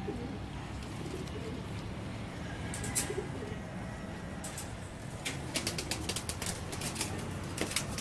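Domestic pigeons cooing low in their loft. From about a third of the way in, a run of sharp taps and flutters joins them.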